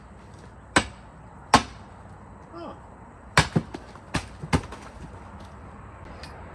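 Sledgehammer striking a steel splitting wedge set in a log round: two hard strikes a little under a second apart. A short vocal sound follows, then a quick cluster of four lighter knocks as the soft round splits apart.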